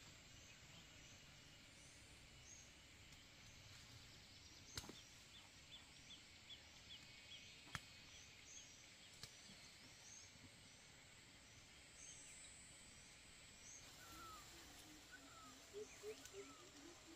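Faint outdoor ambience of small animal calls: high chirps repeating every half second or so, a quick run of short notes partway through, and lower falling calls near the end, with two sharp clicks.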